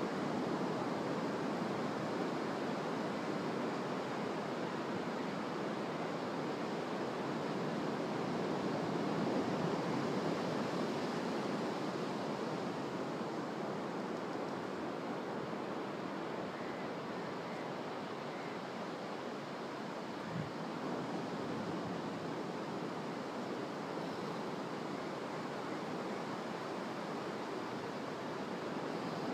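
Ocean surf washing onto a sandy beach: a steady rushing noise that swells a little now and then.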